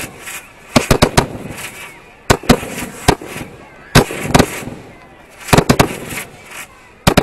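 Aerial fireworks fired from mortar tubes close by: an irregular string of over a dozen sharp bangs, some coming in quick clusters.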